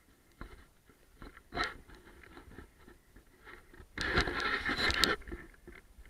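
Footsteps crunching on debris as scattered small clicks. About four seconds in comes a loud scraping rustle lasting about a second: the camera being handled and rubbed against a wall right at the microphone.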